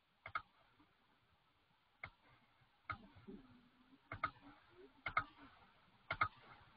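Computer mouse clicking about six times, roughly a second apart, several as quick double clicks, while labels are picked in charting software.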